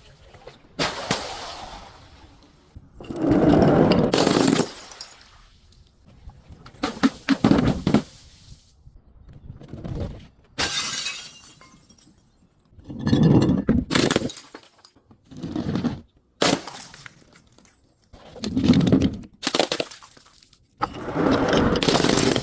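Glass bottles and other crunchy objects being crushed and breaking: a string of separate crunching, shattering bursts, one every second or two, each lasting a second or so.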